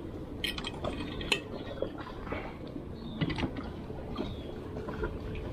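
Scattered light clicks and clinks of small hard objects being handled, a few sharper knocks among them, over a steady low background noise.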